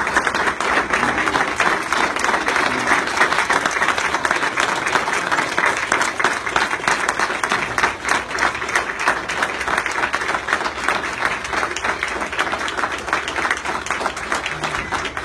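Audience applauding: a room full of people clapping steadily, easing off a little near the end.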